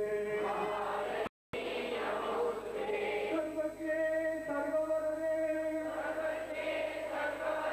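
A group chanting a devotional bhajan together in long, held notes. The sound cuts out completely for a moment about a second and a half in, a dropout in the recording.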